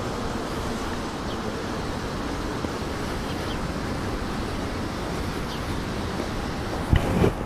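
Steady hiss of light rain and wind, with two brief low thumps a little before the end.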